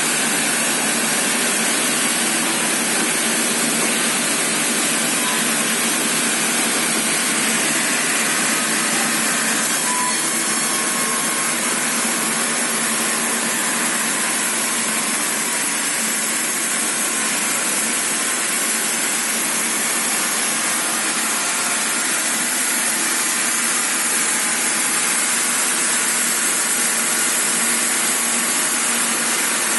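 YSDMILL vertical sawmill running steadily, sawing wood: an even, hissing mechanical noise with no pauses or changes.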